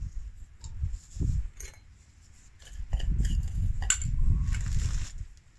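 Light metal camp cookware being handled: a few sharp clicks and clinks as the lid comes off a small metal cook pot and is set down on wood, the sharpest about four seconds in. A low wind rumble on the microphone runs under it.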